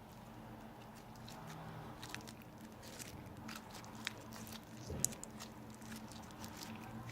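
Borax slime being kneaded and squeezed by hand, giving off irregular small wet pops and squelches, with a sharper pop about five seconds in.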